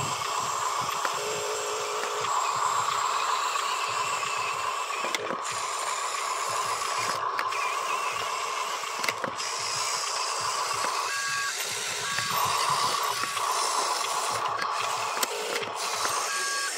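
Huina radio-controlled dump truck's electric motors and gearing whining steadily as it drives with its tipper bed raised. Short two-note electronic beeps sound about two-thirds of the way through and again near the end.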